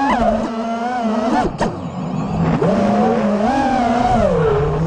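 FPV freestyle quadcopter's brushless motors and propellers whining, heard from the onboard camera, the pitch rising and falling as the throttle changes. About a second and a half in the sound drops briefly, then spikes up sharply before settling back.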